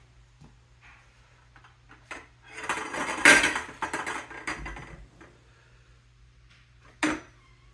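Clattering and rustling as step-stool parts and hardware are handled, with a single sharp knock about seven seconds in.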